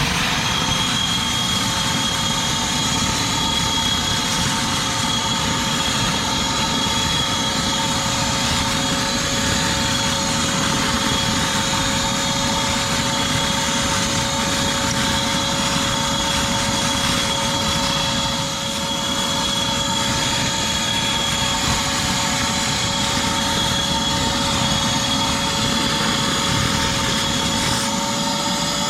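Shop-Vac wet/dry vacuum motor, converted into a pond vacuum, finishing its spin-up and then running steadily with a high whine. It dips briefly in loudness about 18 seconds in, and its pitch rises slightly near the end.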